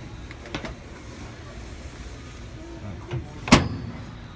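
A microwave oven door being shut, closing with one sharp clunk about three and a half seconds in, after a smaller click about half a second in. Low steady background noise runs underneath.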